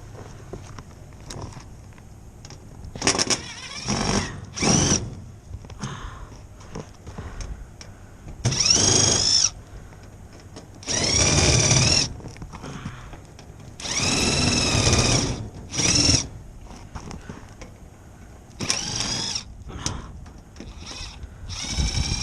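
Cordless drill/driver running in about nine short bursts, its motor pitch rising and falling with each squeeze of the trigger, as when driving or backing out screws.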